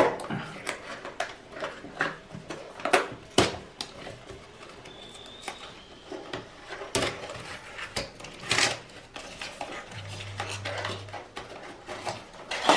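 A cardboard retail box being unpacked by hand: flaps pulled open and cardboard packaging pieces handled. It gives irregular scrapes, rustles and light taps against a wooden tabletop, with a louder scraping rustle about two-thirds of the way through.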